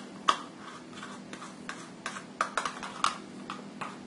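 Irregular light clicks and taps of kitchen utensils and small containers being handled, over a steady low hum.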